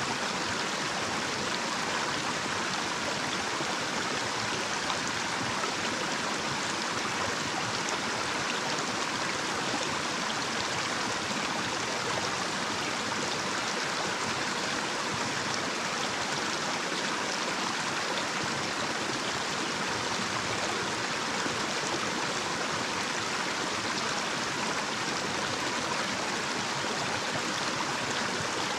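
Small, shallow stream running over a little cascade: a steady rush and babble of flowing water.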